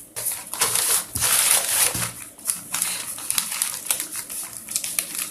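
Packaging being handled and opened by hand: irregular rustling and crinkling with many small clicks and scrapes.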